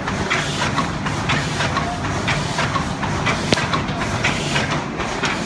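ZBJ-NZZ middle-speed paper cup forming machine running: a steady mechanical clatter with sharp clicks repeating a few times a second over a low hum.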